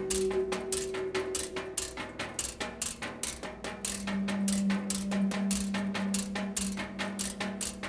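Percussion music: a fast, even run of dry struck notes, about seven or eight a second, over a low sustained drone.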